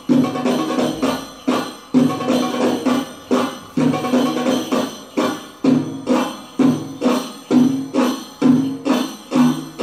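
Belly-dance drum music on an Egyptian tabla (goblet drum): a steady rhythm of deep, ringing strokes about twice a second, with quicker strokes between them and a jingling over the beat.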